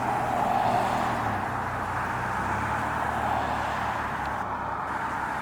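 Road traffic: a steady rush of car tyre and engine noise from passing vehicles, swelling slightly about a second in.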